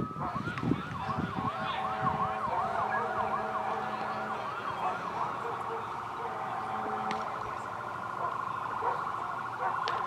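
Emergency vehicle siren sounding: a rising wail leads into a fast yelp of about three up-and-down sweeps a second, which changes about halfway through to a quicker warble.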